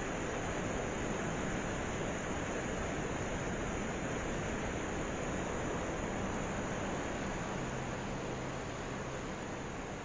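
Steady rushing noise with a faint low hum, slowly fading toward the end.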